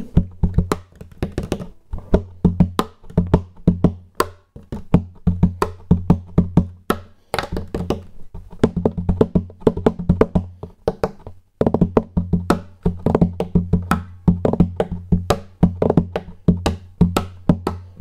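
Percussive hand tapping and slapping on the body of a classical guitar in a steady rhythmic groove, picked up through its under-saddle Shadow NFX-AC pickup: deep thumps mixed with sharp clicks. The rhythm breaks off briefly about eleven and a half seconds in.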